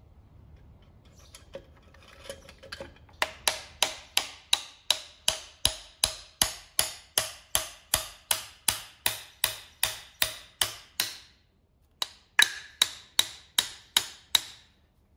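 Sharp metal taps, evenly spaced at about three a second, as the wrist pin is driven through a piston of an air-cooled VW flat-four engine under its fitted cylinder barrel. The taps start a few seconds in, stop for about a second near the end, then a few more follow.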